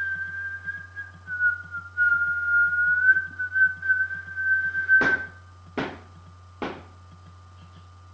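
A person whistling one long, slightly wavering note. As it ends, three heavy thumps come from the floor above, a little under a second apart.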